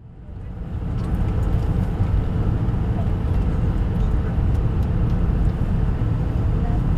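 Airbus A320 jet engine and airframe noise: a steady deep rumble with a faint hum above it, fading in over the first second.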